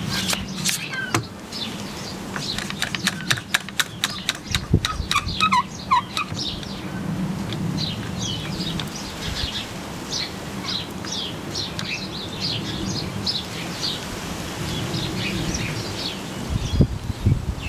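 Small garden birds chirping and singing, many short high calls throughout, with a run of quick sharp clicks in the first few seconds.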